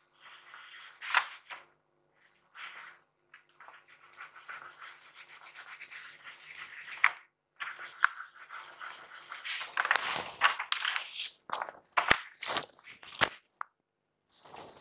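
Drawing on paper: a pen or pencil scratching and rubbing in short, repeated strokes, getting quicker and louder in the second half, with a couple of sharp taps near the end.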